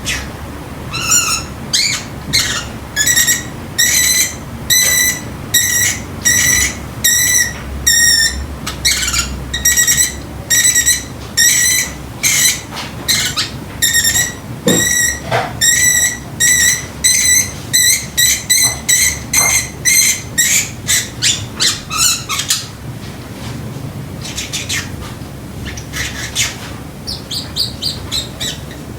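Pacific parrotlet mimicking an electronic timer's alarm: a long run of short, evenly spaced beeps, about two a second. It stops around twenty-two seconds in, and a few softer chirps follow near the end.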